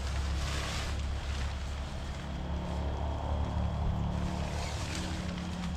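Nylon tent fabric rustling and swishing as it is shaken out and handled, over a steady low rumble.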